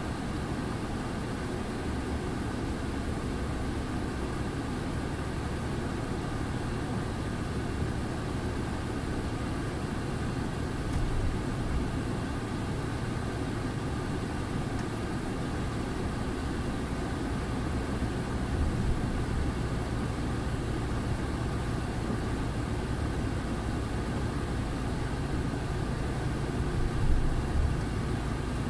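Lorry's diesel engine running steadily in a low gear, heard from inside the cab, holding the truck back on a snowy descent by engine braking alone, with no retarder or service brakes. A few short low bumps break in about eleven seconds in, again near nineteen seconds and near the end.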